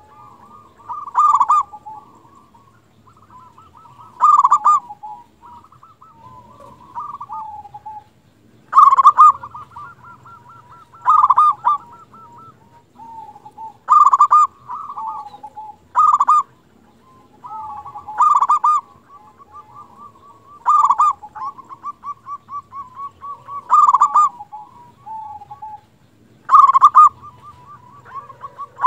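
Zebra dove (perkutut) cooing over and over: about ten loud, short coos every two to three seconds, with softer trilling coos at the same pitch in between.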